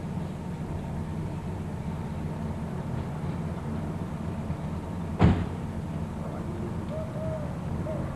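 A car door slammed shut once, about five seconds in, a single sharp thud over a steady low rumble of street background.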